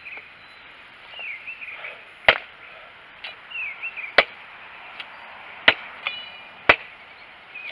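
An 18-inch Imacasa Latin machete (1075 carbon steel) chopping into a thick branch: four sharp chops, the first about two seconds in, with two lighter knocks between them.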